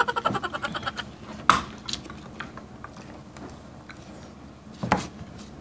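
Ring-pull tab of a small sardine can being pried and tugged with the fingers: light scraping and a couple of sharp metal clicks, about a second in and near the end, as the stiff lid resists opening. Quiet chewing underneath.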